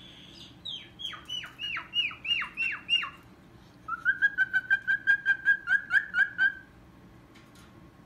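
White cockatoo whistling: a run of about seven quick falling whistles, then a fast, even string of short notes on one pitch, about five a second.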